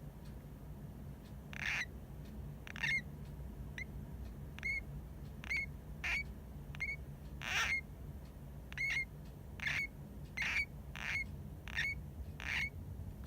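Pet hamster giving short, high squeaks over and over while half-asleep, roughly one or two a second, each with a quick upturn in pitch at the end. The owner wonders whether it is a kind of snoring.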